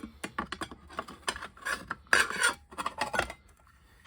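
A new circular saw blade being handled at the saw: a run of short clicks and scrapes, with two longer rasping rubs a little past the middle.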